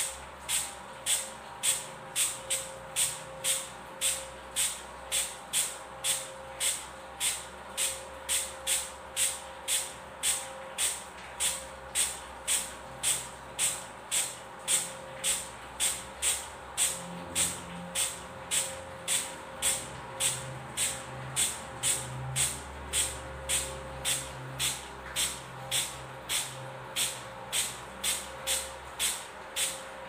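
A plastic trigger spray bottle squirting water, a short hiss about twice a second, over a faint steady hum.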